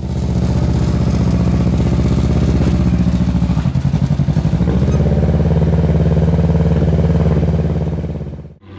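Ninja 650 parallel-twin motorcycle engine in a homebuilt off-road kart running at low revs as the kart creeps up a trailer ramp. The engine note wavers and dips about halfway through, then holds steady and cuts off sharply near the end.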